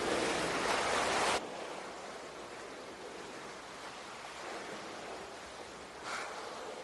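Open-sea ambience: an even hiss of water and wind that drops abruptly to a quieter hiss about a second and a half in, with a brief swell of noise near the end.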